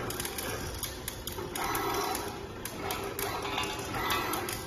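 Automatic screw-fastening machine at work: the gantry motors and servo screwdriver run in repeated short bursts a second or so apart, over a steady low background noise.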